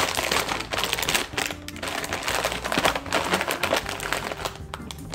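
Plastic snack bag of pork rinds crinkling and crackling as it is pulled open by hand, dense crackles that thin out near the end, with faint background music underneath.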